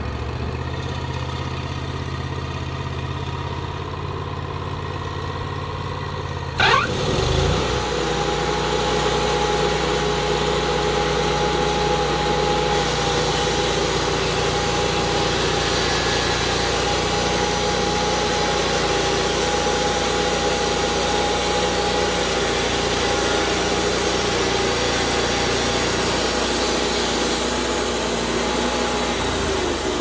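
Wood-Mizer LT40 portable band sawmill engine running at idle. About six seconds in it revs up with a sharp rising whine and then runs louder and steady, with a constant whine, as the band blade saws a slab off a pine log.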